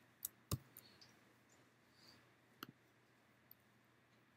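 A few isolated clicks of computer keys over near silence, the loudest about half a second in.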